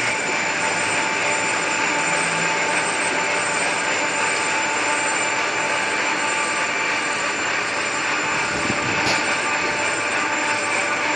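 Lathe turning a 250 mm diameter bar of XM-19 stainless steel: a steady machining noise with several constant high tones running through it.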